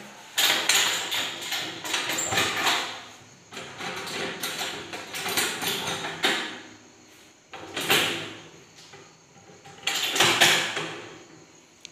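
A stainless-steel autoclave lid being worked open by hand: four bursts of scraping, sliding metal handling noise as its wing-nut clamps are loosened and swung aside, the longest in the first few seconds and another short strong one near the end.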